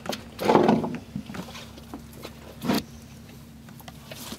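Two large catfish being handled on a boat deck: a few thumps and scuffs, the loudest in the first second and another near the middle, over a faint steady hum.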